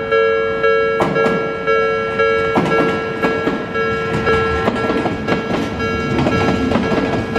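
Japanese level-crossing warning bell ringing steadily, about twice a second, while an eight-car Odakyu 3000 series train pulls out and crosses. The train's wheels clack over rail joints from about a second in, growing busier a little later.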